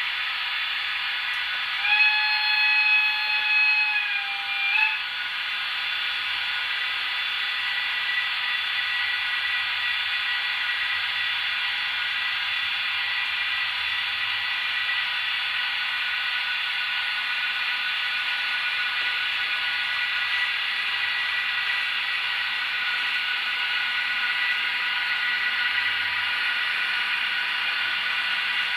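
A model locomotive's sound decoder sounds a whistle a couple of seconds in: one held tone lasting about three seconds that turns up slightly as it ends. Underneath is the steady whirring hiss of Märklin model trains running on the layout's track.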